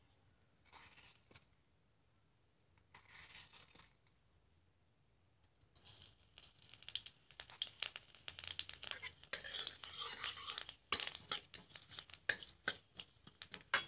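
Two short soft rustles, then from about six seconds in a dense run of crackling, tearing and sharp clicking, as of something being torn, crinkled or broken apart by hand.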